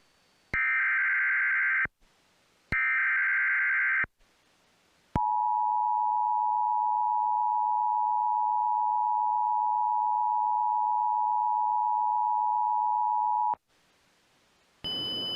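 Emergency Alert System SAME header: two bursts of warbling data tones, each under a second and a half. They are followed by the two-tone EAS attention signal, a steady dual tone held for about eight seconds, which heralds a severe thunderstorm warning. Just before the end a different high beep over hiss begins.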